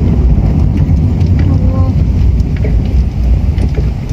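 Steady low rumble of a moving vehicle on a rough road: engine and tyre noise.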